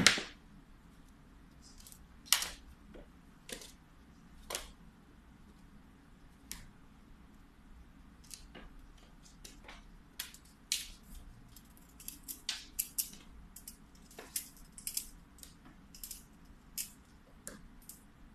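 Irregular sharp taps and knocks of a cat pouncing on and batting a plush clownfish toy across a hard floor. The loudest knock comes right at the start, a few more follow a second or two apart, then a busier run of quick taps in the second half.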